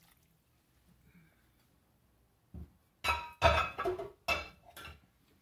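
A glass blender jar being set down and handled: a dull thump, then a quick run of loud clinks and knocks with a ringing note over about two seconds.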